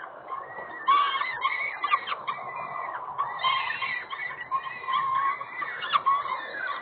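Downy peregrine falcon chicks giving many short, high-pitched food-begging calls as they are fed, over a steady hiss.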